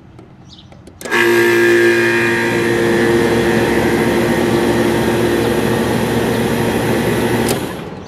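1977 Lennox condenser unit starting abruptly about a second in and running with a steady loud hum and whir while its new contactor is held closed by hand with a screwdriver. It cuts off with a click near the end as the contactor is released, then winds down.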